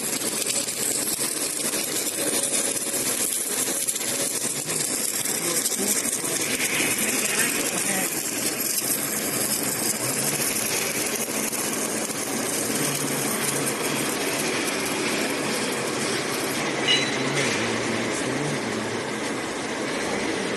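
Automatic pipe-to-flange welding machine at work: a steady, dense crackling hiss from the weld as the pipe turns under the torch, with one brief sharper sound about seventeen seconds in.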